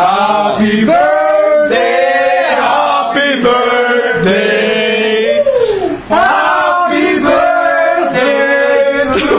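Men singing together without accompaniment, loud and continuous, with a brief break about six seconds in.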